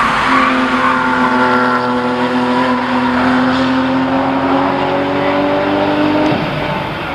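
A sports car's engine accelerating hard, one steady note climbing slowly in pitch for about six seconds, then dropping away suddenly near the end.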